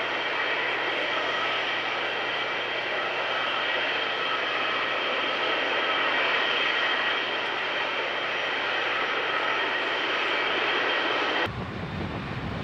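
Boeing 737 MAX's CFM LEAP-1B turbofans running, a steady jet whine with high fan tones. About eleven and a half seconds in, it cuts suddenly to the deeper rumble of another Boeing 737's engines.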